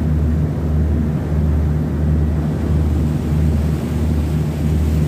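A motorboat's engine running steadily underway: a low, even drone with a slight regular throb.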